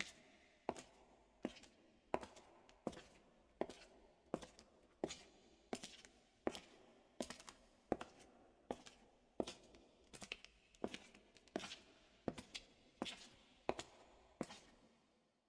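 Footsteps of leather-soled shoes walking steadily on rough concrete, about three steps every two seconds, each a sharp click. The steps stop just before the end.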